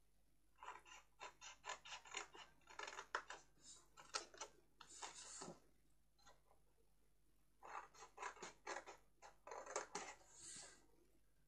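Small scissors snipping through white cardstock in two runs of quick, short cuts, with a pause of about two seconds between them, as the corners of the card blank are cut away.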